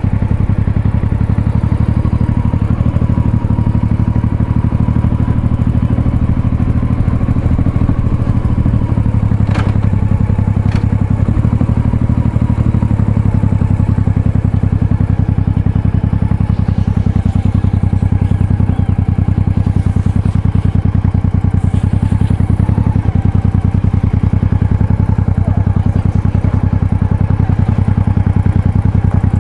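Honda Shadow's V-twin motorcycle engine running steadily while riding, with two sharp clicks about ten seconds in.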